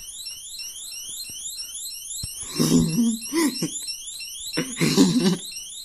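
Electronic alarm going off with no cause found, a false alarm, sounding as a high-pitched chirp that rises and repeats rapidly without a break. A person's voice breaks in over it twice, about midway and near the end.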